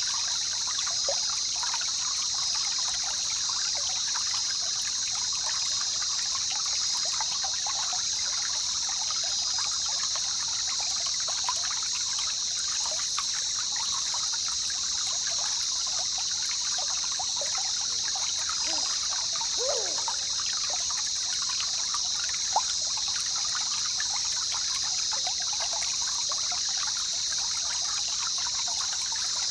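Jungle river trickling and bubbling steadily over its bed, with a constant high-pitched hiss over it. About twenty seconds in comes a short falling call.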